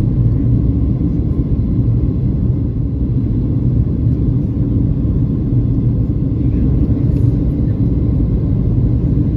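Steady low rumble of a Boeing 737-800's cabin in flight during descent: the noise of its CFM56 engines and the airflow over the fuselage, heard from inside the cabin.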